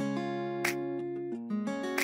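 Background music led by an acoustic guitar, with plucked and strummed notes.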